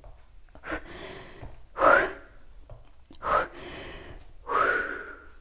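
A woman breathing hard from the exertion of a core exercise: four short, forceful breaths, about a second or so apart, the second the loudest.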